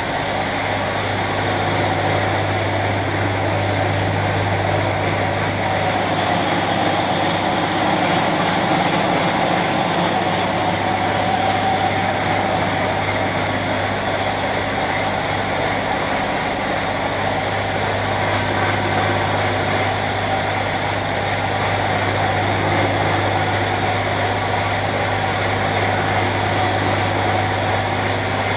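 A machine running steadily: a constant low hum under an even hiss, with no change in speed.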